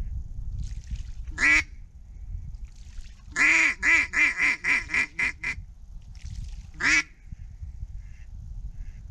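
Mallard duck call blown by a hunter to work a circling duck: a single quack, then a quick run of about eight quacks, then one more quack, over wind rumble on the microphone.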